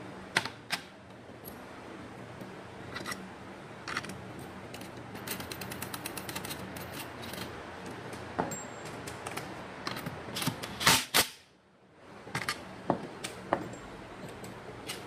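Scattered clicks, taps and light knocks of the plastic rear cover of a Hyundai Sonata alternator being pressed into place and handled, with a quick run of small ticks about five seconds in and a few louder clicks around eleven seconds.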